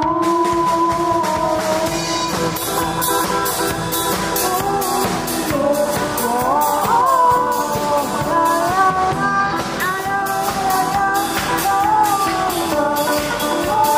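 A student rock band playing live: voices singing a melody over an amateur drum kit beat, electric guitar and electronic keyboard.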